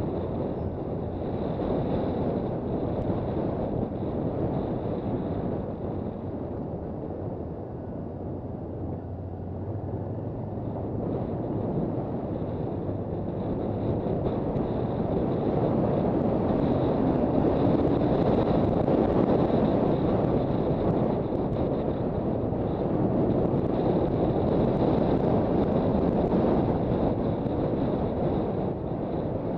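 Riding noise from a Honda CB400 Super Bold'or on the move: wind rushing over the microphone, with the 399 cc inline-four engine and road noise underneath. The rush eases for a few seconds about a quarter of the way in, then swells louder past halfway.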